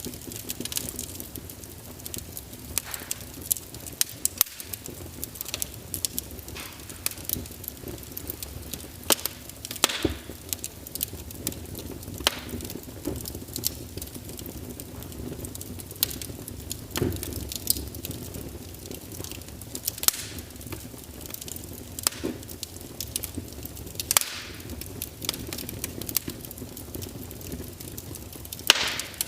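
Fireplace fire crackling: irregular pops and snaps, a few sharper than the rest, over a steady low rumble.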